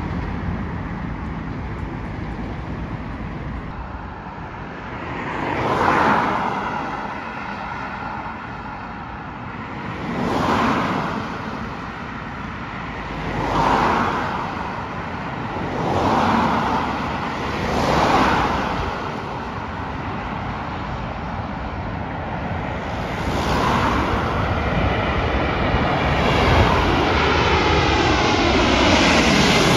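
Road vehicles passing one after another, each swelling and fading, then a twin-engine jet airliner on final approach growing louder as it comes in low overhead near the end, its engine whine dropping in pitch.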